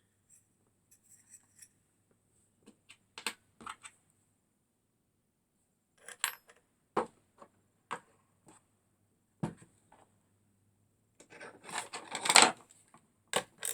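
Hand tools and small metal motor parts being handled on a workbench: scattered clicks and clinks, then a busier stretch of clattering and scraping near the end.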